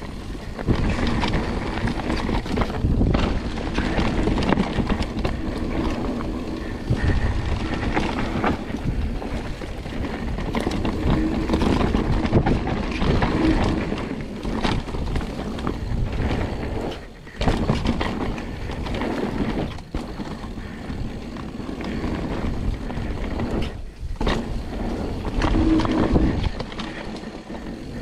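Mountain bike descending a dirt trail: tyres rolling over the dirt and the bike rattling over bumps, with wind noise on the microphone. The noise swells and dips with the terrain, dropping briefly a few times.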